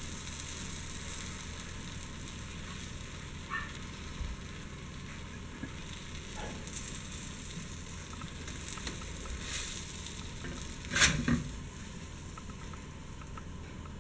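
Grilled cheese sandwich sizzling steadily as it fries in a nonstick skillet. About eleven seconds in, a spatula scrapes under it against the pan with a brief, louder clatter as the sandwich is lifted out.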